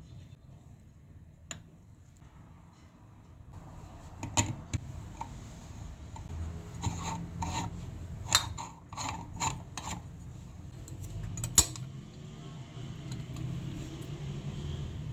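Kitchen objects being handled during moka pot coffee making: rubbing and scraping that comes as a run of short strokes about two a second, with a few sharp clicks, the loudest near the end.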